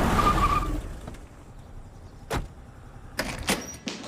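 A vehicle passing, its noise dying away within the first second; then a single sharp knock a couple of seconds in and a short clatter of knocks near the end.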